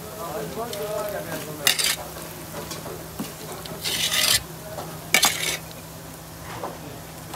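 Metal skimmer spoon stirring and scraping through a large pot of cooked Kabuli pulao rice: a few short rasping strokes, the longest and loudest about four seconds in, lasting about half a second.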